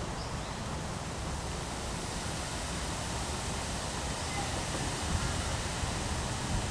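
Strong wind rushing steadily through trees, a dense even rush of moving leaves and branches with a low rumble underneath.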